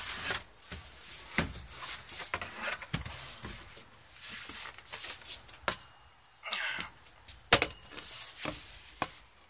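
Irregular wooden knocks and taps with rustling as a board is handled close to the microphone, several sharper knocks standing out among softer clatter.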